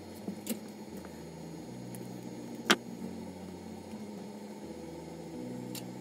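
A few small clicks over a low steady hum, with one sharp, louder click about halfway through.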